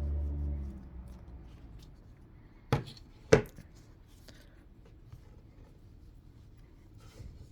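Two sharp knocks about half a second apart, a little under three seconds in, from handling a phone and cleaning supplies on a hard surface, amid faint rustling. A low rumble fades out within the first second.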